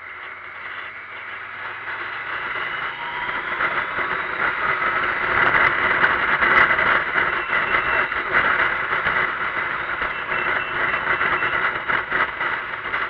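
Motorcycle riding at speed: a steady rush of wind over the bike-mounted camera with the engine running underneath. It grows louder over the first six seconds or so, then stays loud and fluttering.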